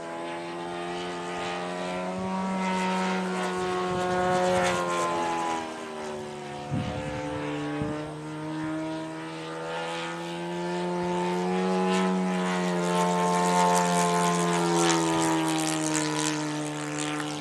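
Radio-controlled Hawker Hurricane scale model flying past twice, its engine and propeller rising in pitch and loudness as it approaches and falling away as it passes. A short knock comes about seven seconds in.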